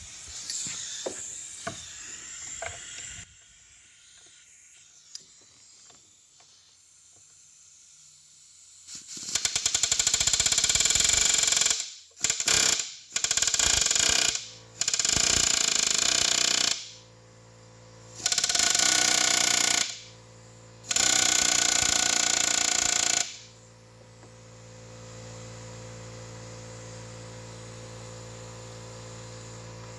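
Impact wrench hammering in six short bursts, each from half a second to about two and a half seconds, loosening bolts on a 4L60E transmission case. A steady low hum follows near the end.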